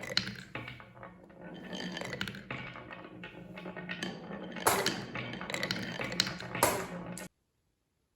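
Marbles rolling and clattering along a wooden marble run track: a steady rolling rumble with many sharp clicks and knocks, a few louder clacks about five and seven seconds in. The sound cuts off abruptly about seven seconds in.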